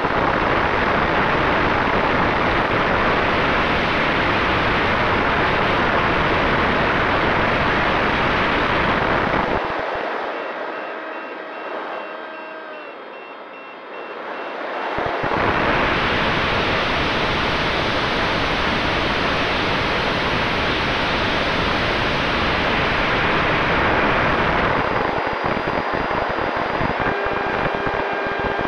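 Onboard sound of a Multiplex FunJet Ultra 2 RC plane in fast flight: its electric pusher motor and propeller under heavy wind rush over the camera. About ten seconds in, the noise dies away for about five seconds while a few faint thin tones slide down, then the rush comes back at full level. Near the end, thin steady whine tones sit under the rush.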